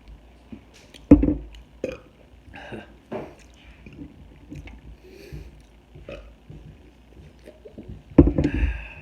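Close-up eating sounds of a person chewing and biting a fried chicken sandwich. Two much louder, low, rough sounds come about a second in and near the end.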